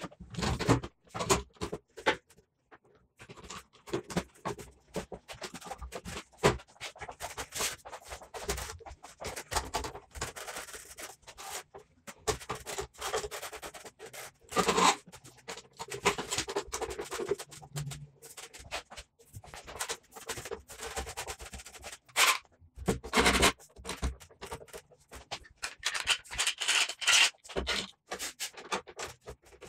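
Metal bar clamps being set and tightened around a glued wooden drawer box during glue-up: a string of knocks, clicks and scrapes of metal on metal and wood, with a few louder clunks.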